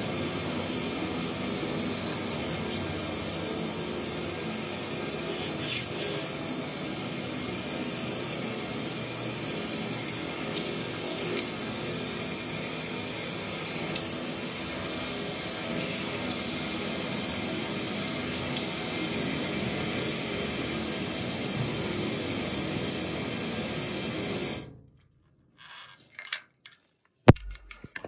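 High-pressure drain-cleaning washer running steadily while its jet hose flushes a drain pipe: a continuous hiss with a hum. It cuts off abruptly near the end, leaving a few faint clicks and knocks.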